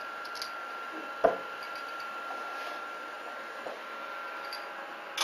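One sharp knock about a second in, a few light clicks, and a second knock near the end, as a printer handle and its small screws are handled and fitted against the frame. A faint steady high-pitched hum runs underneath.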